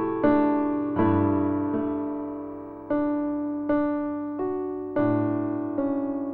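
Background piano music: slow chords struck roughly once a second, each ringing and fading before the next.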